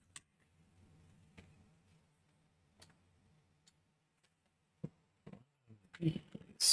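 Small plastic Lego Technic pieces clicking and tapping as they are handled and pressed together: scattered light clicks about once a second, then a cluster of louder clicks near the end.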